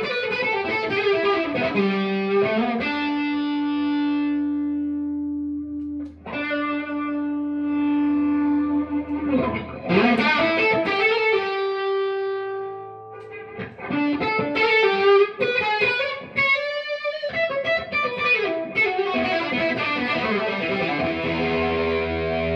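Distorted electric guitar, a Gibson Les Paul played through a Lovepedal Tiki Drive overdrive pedal into a Mesa Boogie Nomad tube amp: chords and held notes ringing out, with short breaks about six and thirteen seconds in.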